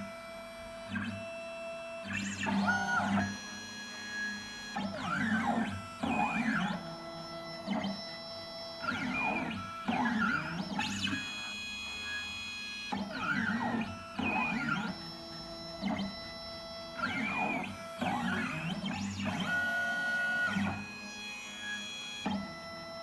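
Music: held notes that change every couple of seconds, with recurring sliding high notes over them.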